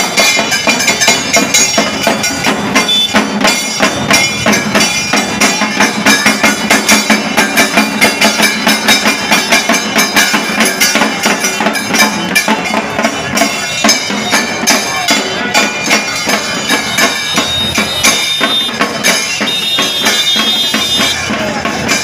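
Drums of a Tamil temple procession band beating a fast, steady rhythm, with other instruments playing over them and crowd chatter underneath.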